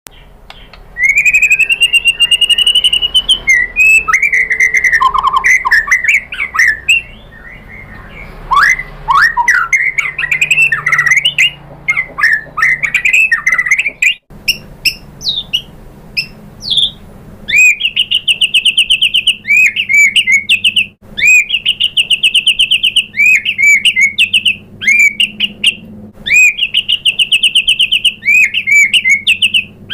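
White-rumped shama singing: a varied run of whistled notes sliding up and down. About halfway through, it moves into fast trilled phrases that repeat several times.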